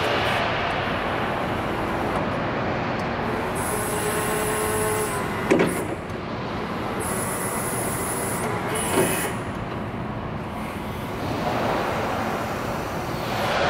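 Raymond 7500 stand-up electric reach truck running: a steady hum of its motors and hydraulics while the pantograph reach extends and retracts the forks. A high whine rises twice, and there are two sharp clunks about five and a half and nine seconds in.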